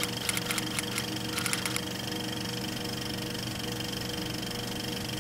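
Bursts of rapid typing clicks over a steady machine hum holding a few level tones. The clicks stop about two seconds in and the hum runs on alone.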